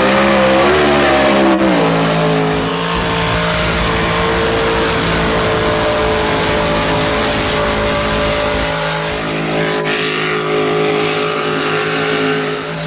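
Supercharged mega truck engine revving up in the first couple of seconds, then held at a steady high rev under full power.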